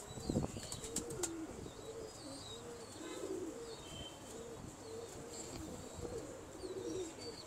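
Domestic pigeons cooing, a string of soft, repeated coos throughout, with a few faint clicks in the first second or so.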